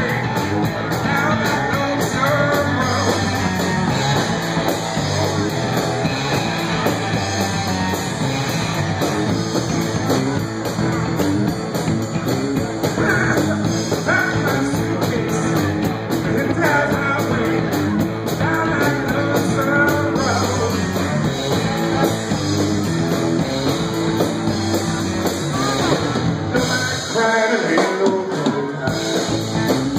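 Live rock music from a three-piece band: amplified electric guitar, electric bass and drum kit playing steadily.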